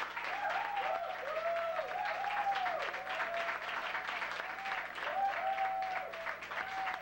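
Audience applauding after a song, with whooping cheers rising and falling over the clapping.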